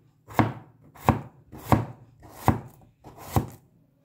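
Stainless steel cleaver slicing through a raw potato, its edge striking a plastic cutting board five times at an even pace, about one cut every three quarters of a second.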